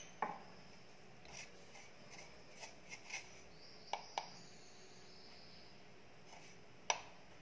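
Quiet kitchen room tone with a few faint, scattered clicks and taps of steel kitchen utensils, the sharpest about seven seconds in.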